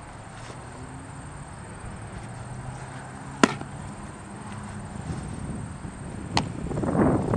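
A pitched baseball smacking into a catcher's leather mitt with one sharp pop about halfway through, followed by a fainter pop a little over six seconds in and a rustle of noise at the end.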